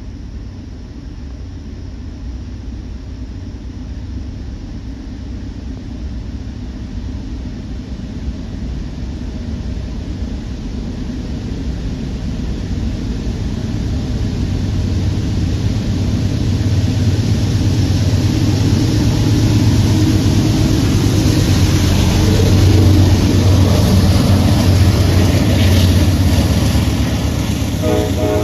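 Diesel locomotives of a freight train approaching, their low engine drone growing steadily louder to a peak in the last third.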